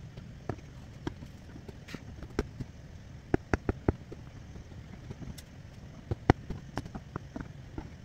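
Aari hook needle punching in and out of fabric while working chain stitch: irregular sharp clicks and taps, sometimes several a second, over a low steady hum.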